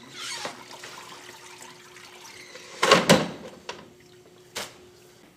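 Mop being wrung out in a mop bucket: water splashing, loudest about three seconds in, with a short sharp knock near the end.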